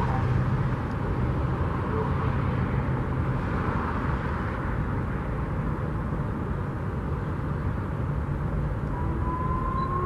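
Steady outdoor noise of road traffic, with a low engine hum in the first few seconds. About nine seconds in, an Alertus HPSA-1200 outdoor warning siren begins its whoop tone, a quiet rising sweep, played at the reduced volume used for tests.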